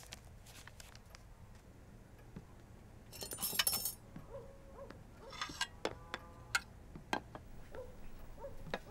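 Dishes and silverware clinking and clattering as a table is set: a loud burst of clinking about three seconds in, another shortly after, then several sharp single clinks.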